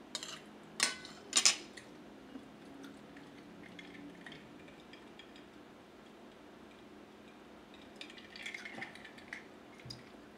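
Metal spoon and fork clinking against a ceramic plate, three sharp clinks within the first second and a half. A scatter of lighter clicks follows about eight seconds in.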